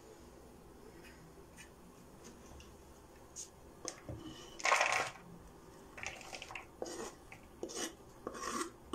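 Knife working on a wooden cutting board: faint light taps at first, then a run of sharper knocks and scrapes from about three and a half seconds in, the longest and loudest just before the middle, as the diced vegetable is scraped up and swept off the board.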